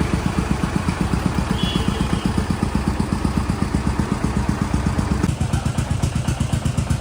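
New Holland 3630 tractor's three-cylinder diesel engine running with a steady, even beat. The higher part of the sound drops away about five seconds in.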